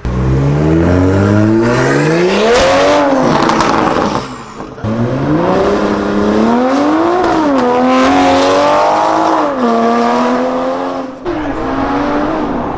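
2020 Toyota Supra's turbocharged inline-six and exhaust under hard acceleration: the revs climb in pulls, broken by upshifts about four, seven and eleven seconds in.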